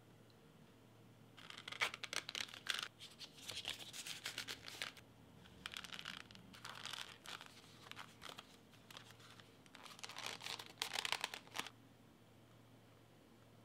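A card sliding in and out of a leather card wallet, leather and card rubbing in about four scratchy rustling strokes of a second or two each, with quiet gaps between.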